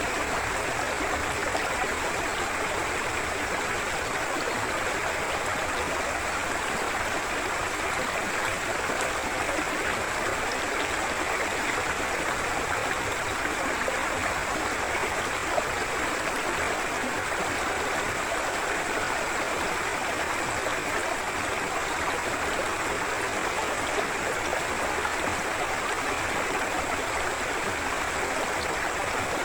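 Forest river flowing steadily, an even, unbroken rush of water.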